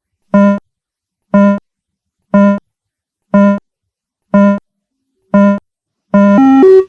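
Beep-test countdown: six short electronic beeps about a second apart, then a longer tone that steps upward in pitch near the end, the signal to start running.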